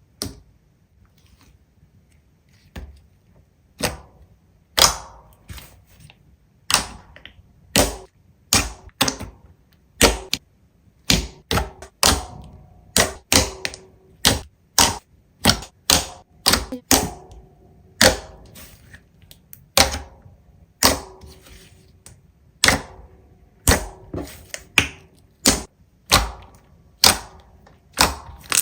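Slime being pressed and poked close to the microphone, making a run of sharp pops and clicks: a few at first, then about one to two a second.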